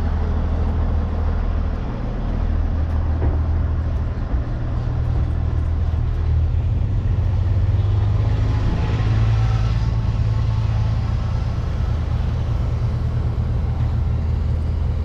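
Diesel truck engine idling steadily, a low, even drone.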